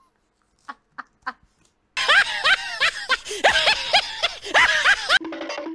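A laughing sound effect edited in over a laughing-lion meme clip: a loud run of cackling, rising-and-falling "ha" calls, about three a second, starting about two seconds in after near silence and cutting off suddenly near the end.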